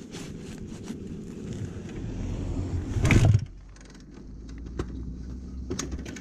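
Motorcycle engine sounds: a loud short burst about three seconds in, then a low steady running note.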